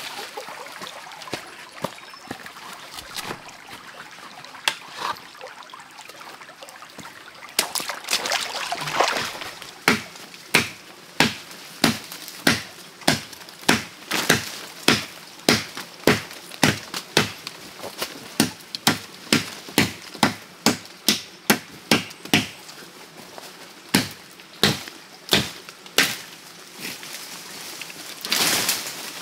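Trickling stream water with scattered clicks, then a long run of sharp knocks, evenly spaced at about two a second, beginning about ten seconds in and stopping a few seconds before the end; a brief rustle follows near the end.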